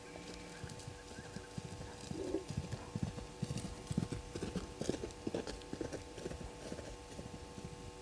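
Several spotted hyenas running past, a rapid, irregular patter of footfalls that starts about two seconds in and thins out near the end, over a steady electrical hum.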